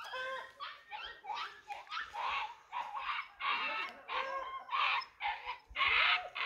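An animal calling over and over: short, pitched cries about two a second, getting louder toward the end.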